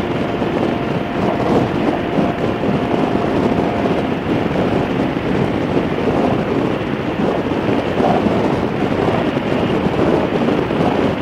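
Wind rushing over the microphone with a Harley-Davidson motorcycle's V-twin engine running underneath, riding along at a steady speed.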